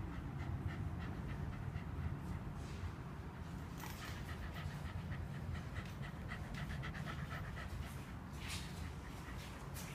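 Shiba Inu panting quickly and evenly, several breaths a second, winded at the end of a walk.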